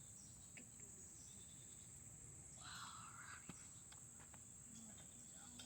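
Near silence: a faint, steady high-pitched insect drone, with a few faint clicks and a brief soft rustle about three seconds in.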